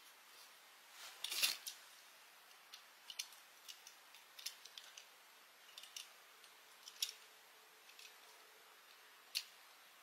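Small clicks and taps of a die-cast toy bus being picked up from a cardboard box and handled in the fingers, with a quick cluster of louder clicks about a second and a half in, then scattered single clicks.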